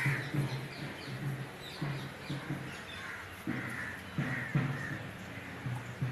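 Birds calling with short, harsh calls several times, over an uneven low background rumble.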